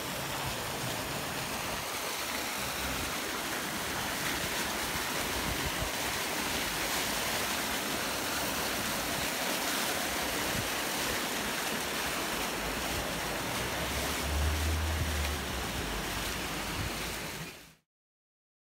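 Steady rushing and splashing of a thick jet of water from a hose pouring into water pooled behind free-standing plastic flood barriers, with a short low rumble about three-quarters of the way through. It cuts off suddenly just before the end.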